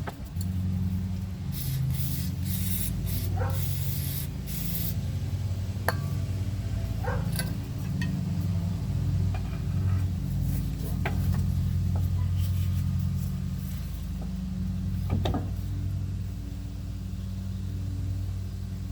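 Aerosol can of penetrating fluid sprayed in several short hissing bursts in the first few seconds, onto a stuck driveshaft joint at a rear differential. A steady low hum runs underneath, and a few light metallic knocks come later.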